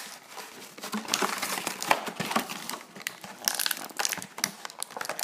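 Clear plastic toy packaging crinkling and rustling as it is handled and opened, in irregular crackles.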